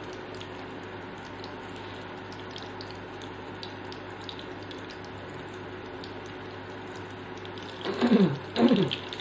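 Eggplant omelette frying in oil in a nonstick pan: a steady sizzle with faint crackles over a steady hum. Near the end, two brief louder sounds with falling pitch as a piece is turned with a wooden spatula.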